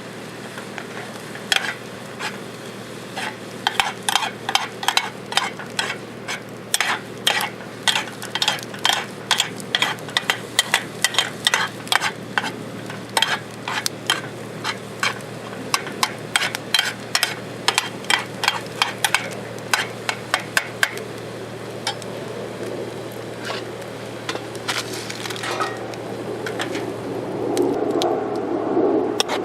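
A utensil tapping and scraping against a bowl or pan in quick repeated strokes, a few a second, as food is stirred or mixed, then thinning out. Near the end a louder rushing noise like food starting to sizzle comes in.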